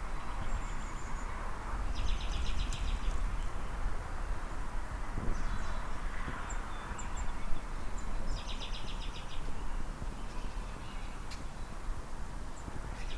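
A small songbird singing a rapid high trill twice, with a few faint high chips between, over a steady low rumble.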